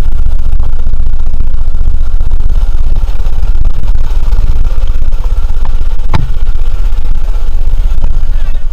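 Small engine of a homemade mini buggy running steadily under way on a dirt track, with a sharp knock about six seconds in.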